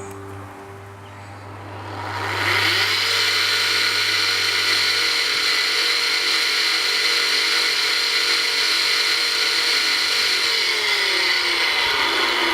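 Restored washing machine electric motor running under test: its whine rises in pitch as it spins up, holds steady, then drops in pitch near the end.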